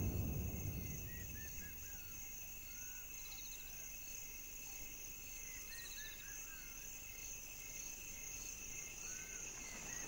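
Bush ambience: a steady high-pitched drone of insects, with short bird chirps in small groups about a second in, around six seconds in and near the end. The tail of background music fades out in the first second or two.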